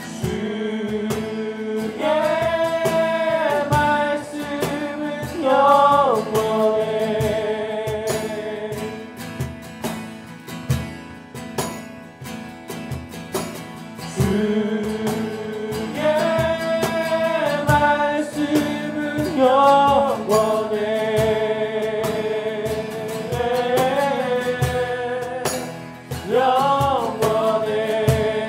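Acoustic worship song: male vocals singing a slow melody with long held notes over strummed acoustic guitars and a cajon keeping the beat, the same sung phrase coming round twice.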